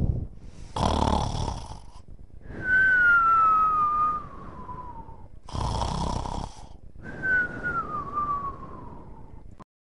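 Cartoon-style snoring: twice, a rasping snore in, each followed by a long whistled breath out that slides down in pitch.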